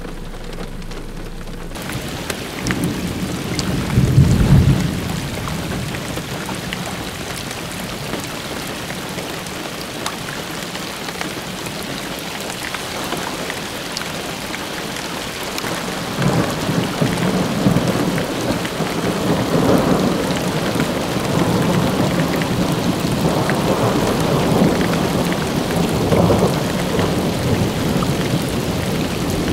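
Thunderstorm: steady rain hissing, with a loud rumble of thunder about four seconds in, then long rolling thunder in repeated rumbles through the second half.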